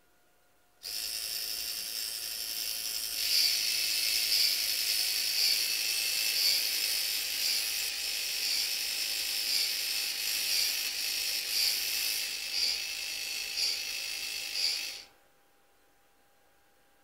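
Small electric motor switched on from a PC's parallel port, running with a high-pitched whine. It starts suddenly about a second in, turns louder and harsher a couple of seconds later with a regular pulse about once a second, and stops abruptly near the end.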